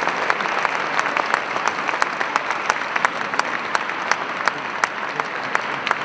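Audience applauding steadily, a dense patter of many hands with single sharp claps standing out.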